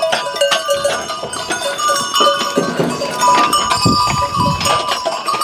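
Many livestock bells on sheep and goats clanking and jangling together as the flock crowds in to its feed, with some bleating about two-thirds of the way through.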